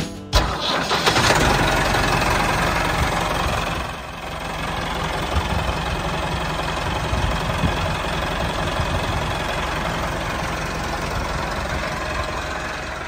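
A tractor engine running steadily, dipping briefly about four seconds in and fading away near the end.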